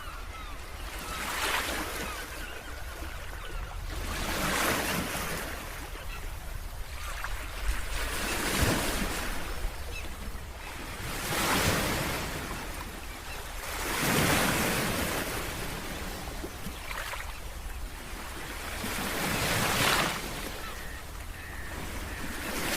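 Ocean waves breaking on a beach, the surf noise swelling and fading every few seconds, over a steady low rumble of wind on the microphone.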